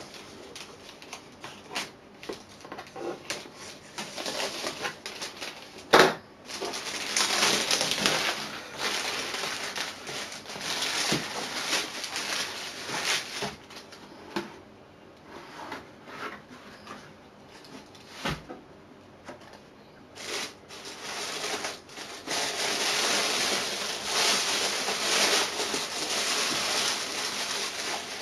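Plastic mailer bag, cardboard box and tissue paper rustling and crinkling as a shoebox is unpacked and opened by hand, with a sharp knock about six seconds in and a smaller one around eighteen seconds.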